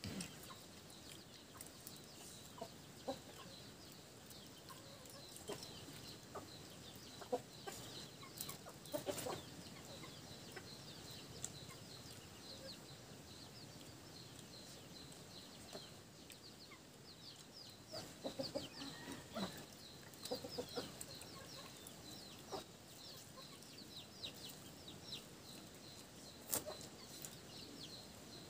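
Chickens clucking, with many faint high chirps and scattered clicks; a burst of louder calls comes about two-thirds of the way through.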